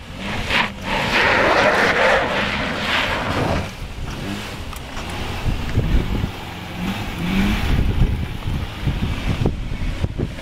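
Nissan Murano's 3.5-litre V6 running under load as the SUV climbs a loose dirt slope, its tyres working over the rutted ground. A hissing rush on the microphone fills the first few seconds, and the engine note rises briefly about seven seconds in.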